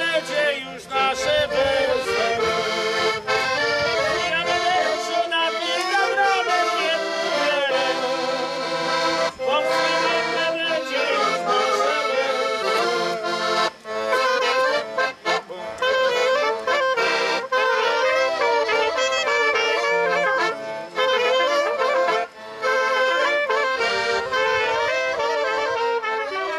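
An accordion, trumpet and clarinet playing a folk tune together.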